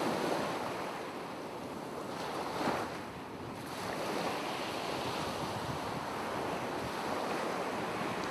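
Ocean waves washing, a steady rushing surf with a brief louder swell a little under three seconds in.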